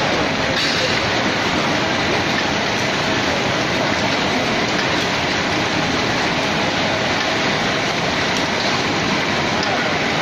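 Steady, dense running noise of an automatic chicken wing cutting machine and the processing line around it, an even, unbroken mechanical rush with no clear beat.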